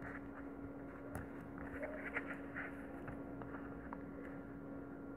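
Faint clicks and light rustling of pearl beads, needle and nylon thread being handled while beading, over a steady low hum.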